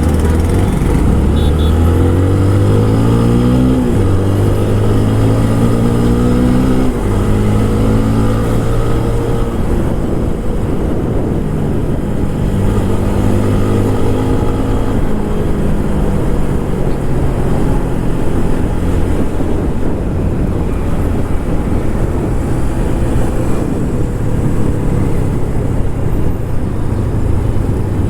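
TVS Apache RTR 160 4V motorcycle's single-cylinder engine through its stock exhaust, pulling up through the gears while riding: engine speed climbs and drops at upshifts about four and seven seconds in, then cruises with the revs rising and falling a little.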